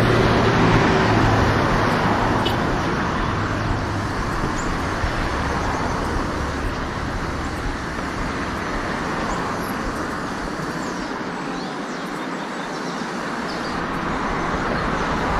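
Road traffic passing close by: a steady wash of tyre and engine noise that eases off, then builds again near the end as another vehicle approaches.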